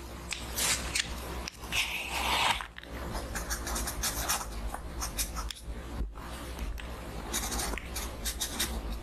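A pen scratching across a paper booklet page, writing in many short strokes. A louder scraping rustle comes about two seconds in.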